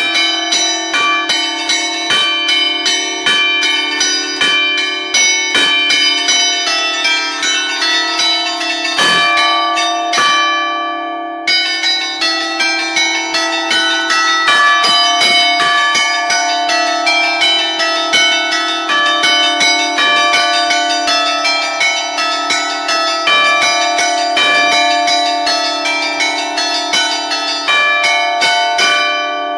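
Five church bells in D, cast by Barigozzi in 1952, struck by hand from a wooden baton keyboard that pulls their clappers against the hanging bells. They play a fast festive allegrezze, several strikes a second, with the bell tones ringing on into each other.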